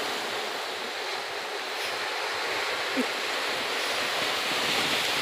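Sea surf washing steadily over a rocky boulder shore, with one brief knock about three seconds in.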